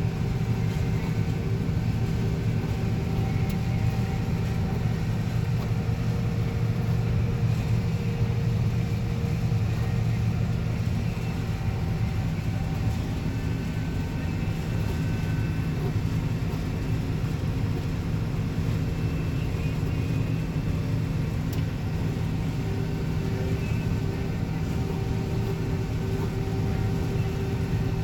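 Combine harvester running steadily while cutting soybeans: a low, even drone of engine and machinery with faint steady whines above it.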